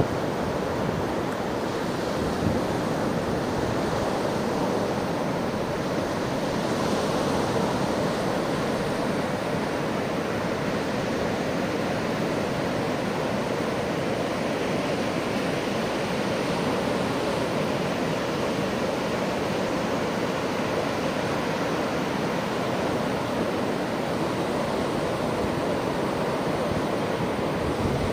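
Ocean surf breaking and washing along the shore, an unbroken, even sound with no single waves standing out, mixed with some wind.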